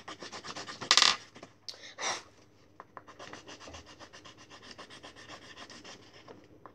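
Pen scribbling back and forth on paper, colouring in, in rapid strokes. Two louder, longer scratches come about one and two seconds in, then a steady run of quicker, softer strokes.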